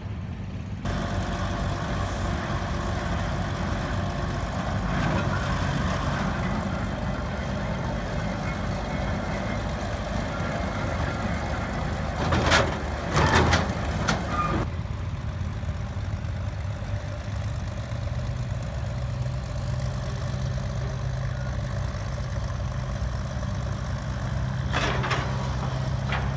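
Engine of an antique power shovel running steadily, with a few loud metallic clanks about halfway through.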